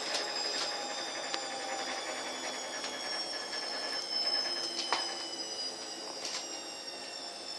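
Washing machine running: a steady high whine over a noisy low hum, with a few scattered clicks.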